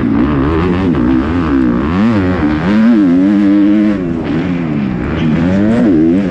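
Kawasaki motocross bike's single-cylinder four-stroke engine at race pace, the revs climbing and dropping again and again with throttle and gear changes: a dip about two seconds in, held high around three seconds, chopped off at about four seconds and climbing again near the end. Wind rushes over the helmet camera's microphone throughout.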